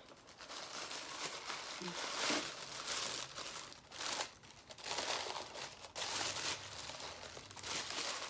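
Crinkling and rustling of snack-crate packaging being handled, in a run of irregular noisy bursts.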